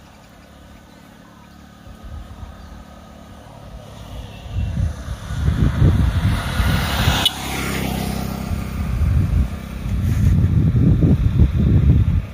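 A motorcycle approaches and passes close by. Its engine and tyre noise swells from about four seconds in and peaks near seven seconds, and low rumbling goes on after it passes.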